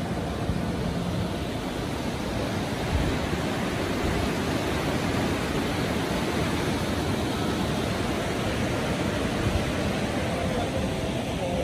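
A waterfall rushing steadily: a constant, fairly loud hiss of falling water with no breaks.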